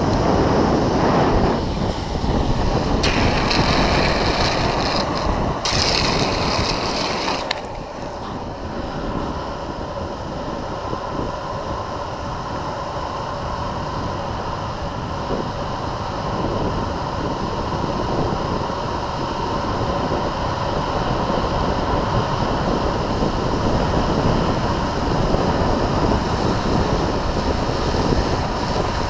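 Wind rushing over the microphone and longboard wheels rolling on asphalt at speed downhill, a steady noise. About three and six seconds in come two short stretches of louder, higher hiss.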